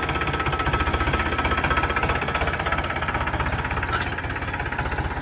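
Farmtrac Champion 41 tractor's diesel engine running steadily under load as it pulls a cultivator through the soil, with a fast, even pulse.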